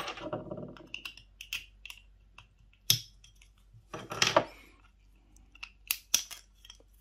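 Clicks and knocks of hard plastic Rimowa suitcase-wheel parts being handled and fitted together on a desk, with a louder scraping click about four seconds in.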